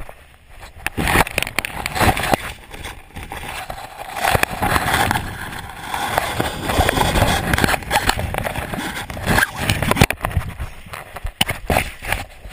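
Wind buffeting the microphone as the pilot descends under a deployed rescue parachute: an irregular, gusty rush with rustling and small knocks, and no engine tone.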